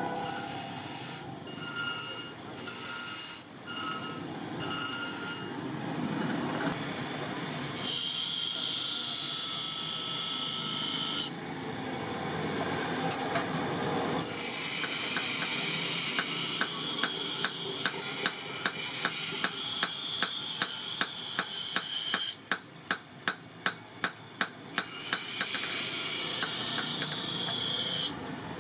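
Hand metalworking on a forged leaf-spring knife, heard in several short shots: scraping, rasping hiss from filing or sanding the steel, then a run of sharp, evenly spaced taps about two a second for several seconds.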